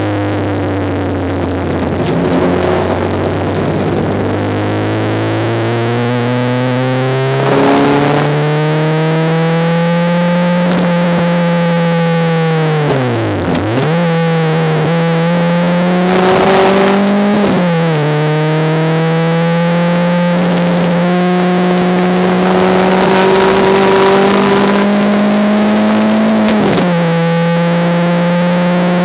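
Honda Civic race car's engine heard from inside the car at racing speed, its pitch climbing through the gears and dropping at each shift, with a sharp dip and quick recovery about halfway through as the driver lifts and changes down.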